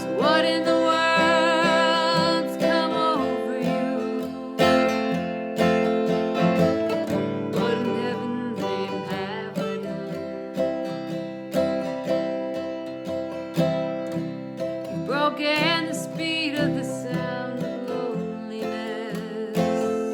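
Acoustic guitar strumming chords, with a wavering lead melody line over it near the start and again later: an instrumental break in a song.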